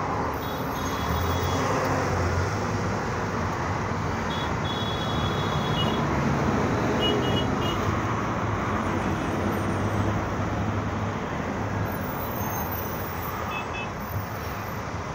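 Steady road traffic noise heard from a moving vehicle in dense traffic: a continuous rumble of engines and tyres, with a few faint short high-pitched beeps.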